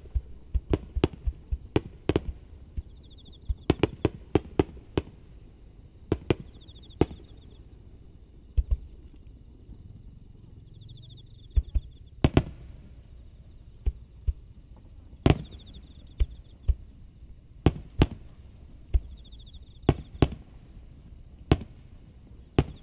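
Aerial firework shells bursting, heard from about 800 m away: a fast run of sharp bangs in the first seven seconds, then single bangs every second or two.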